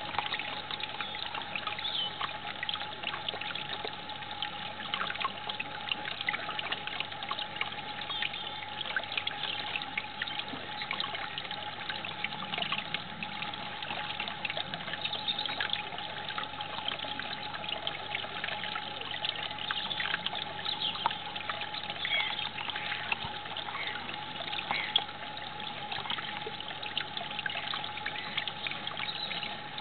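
Water trickling and splashing continuously over a model garden watermill, full of small drips and splashes, with a steady hum underneath.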